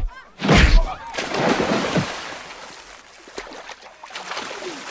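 Fistfight sound effects: two heavy punch thuds in the first second, then a rough rushing noise that slowly fades.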